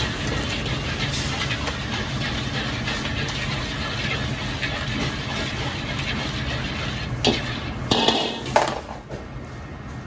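Steady roar of a restaurant kitchen's wok burner and exhaust. About seven seconds in, a metal ladle knocks against the carbon-steel wok, and seasoning sauce poured into the hot wok sizzles briefly and loudly before the noise drops.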